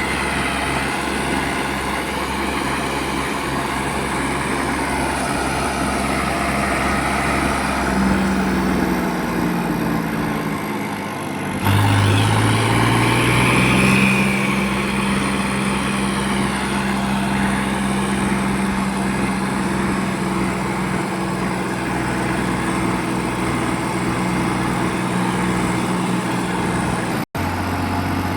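Farm tractor's diesel engine running steadily. About nine seconds in the engine note sags and falls, then jumps back up sharply about twelve seconds in and runs steady again. The sound cuts out for an instant near the end.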